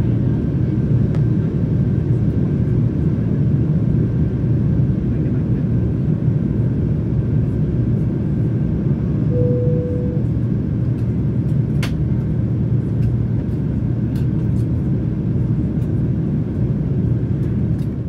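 Airliner cabin noise heard from a window seat: a steady low rumble of the engines and airflow. A short steady tone sounds about halfway through, and a single click follows a couple of seconds later.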